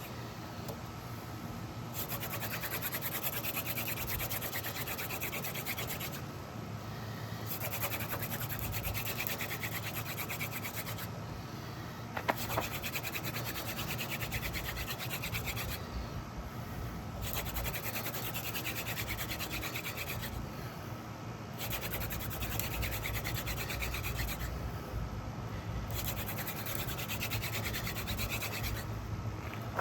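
Hand drill friction fire: a dogfennel spindle spun back and forth between the palms on a tulip poplar fireboard, a rapid rhythmic rubbing and grinding. It comes in runs of about three to four seconds, broken by short pauses as the hands move back up the spindle.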